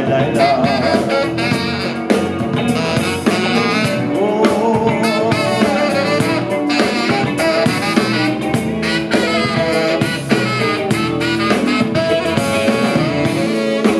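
Saxophone taking a melodic solo over a live rock band: electric guitar, bass and drum kit.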